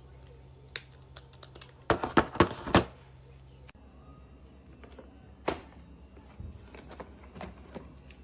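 Hard objects being handled: scattered clicks, a quick clattering run of loud knocks about two seconds in, and one sharp knock a little past the middle.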